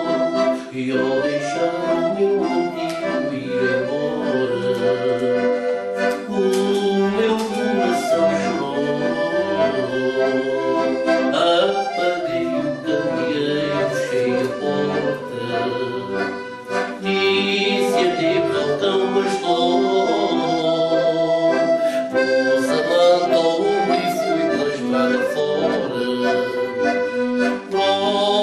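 Accordion playing a traditional tune with a steady rhythm.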